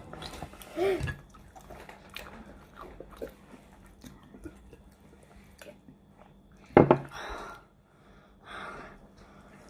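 People chewing crispy fried chicken wings, with soft mouth noises and a short vocal sound about a second in. A sharp knock about seven seconds in is the loudest sound.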